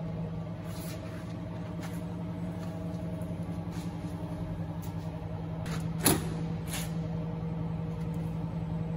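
Steady hum of running machinery, with a few light knocks and one sharp click about six seconds in.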